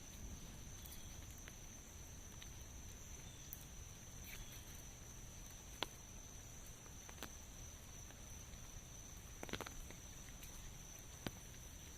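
Faint rain ambience: a soft, steady hiss with a few scattered drip-like clicks, the sharpest about six seconds in and a short cluster near nine and a half seconds, over a steady high-pitched tone.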